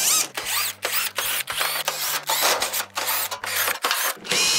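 Cordless drill/driver running in short trigger pulses, about three a second, its motor whine rising and falling in pitch with each pulse, as it backs Phillips screws out of a range's sheet-metal rear panel.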